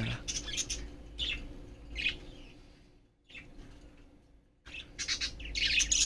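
Budgerigars chirping in short, high calls: a few scattered chirps, a near-silent pause around the middle, then a quick run of chirps near the end.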